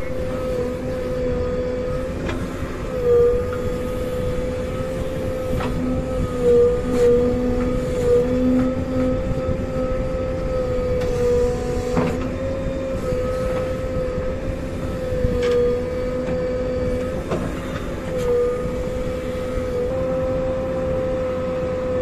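JCB 3DX backhoe loader running under load while its backhoe digs: the engine and hydraulics give a steady whine that sags briefly in pitch several times as the arm takes load, with a few sharp knocks from the bucket and linkage.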